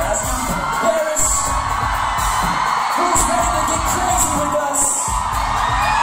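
Live pop music with a thumping beat, fans screaming and whooping over it.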